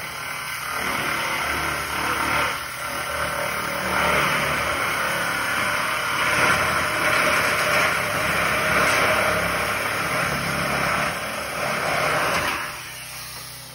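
Handheld power tool running for about twelve seconds against the edge of a ribbed metal roof panel, with a few brief dips, then stopping shortly before the end.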